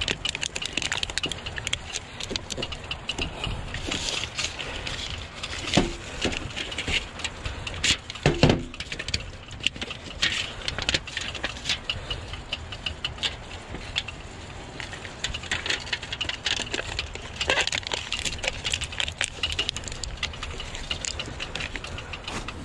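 Adhesive tape being pulled off its roll and pressed into place by hand: irregular crackling and rattling, with a couple of sharper knocks about 6 and 8 seconds in.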